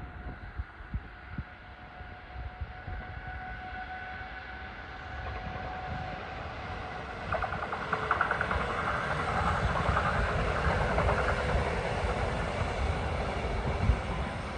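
A train approaching and passing, its running noise growing over the first half and staying loud from about eight seconds in. Wind buffets the microphone in the first couple of seconds.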